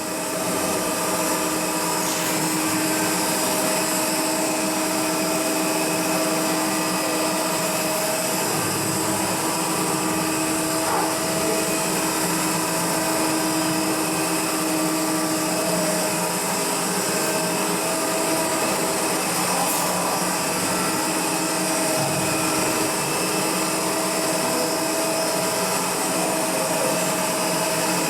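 Machinery running steadily: an unchanging drone with a constant hum.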